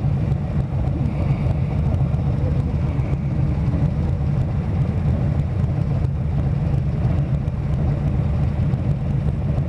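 Harley-Davidson touring motorcycle's V-twin engine running steadily at low revs as the bike creeps along in slow traffic: an even, deep rumble with no revving.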